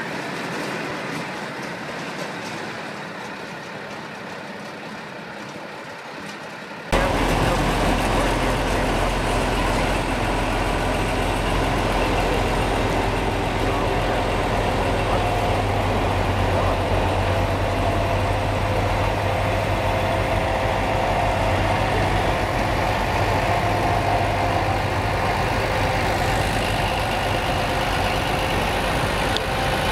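Big diesel farm tractor engine idling steadily. About seven seconds in the sound cuts to a louder, deeper diesel engine running steadily with a strong low hum.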